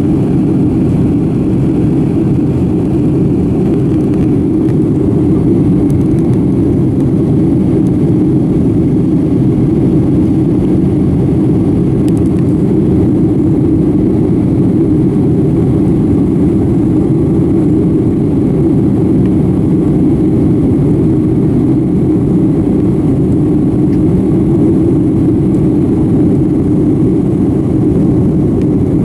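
Steady cabin noise inside a Boeing 757-200 climbing after takeoff: engine and airflow noise, a constant low rumble that does not change.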